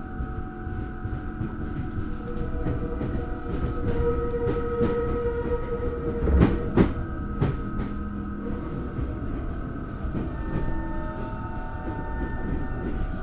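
Tokyo Metro 03 series armature-chopper train running, with the steady high whine known as the 'jet sound' on this abnormally noisy car, over low rumble. Wheels clack over rail joints throughout, loudest twice about six and a half seconds in and once more a second later.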